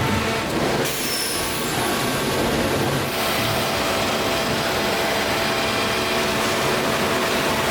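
Steady mechanical noise of factory production-line machinery, changing abruptly about a second in and again about three seconds in.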